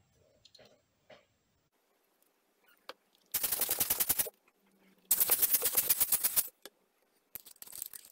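Two rapid runs of sharp mechanical clicks, about a dozen or more a second, each lasting one to one and a half seconds, with a shorter, fainter run near the end.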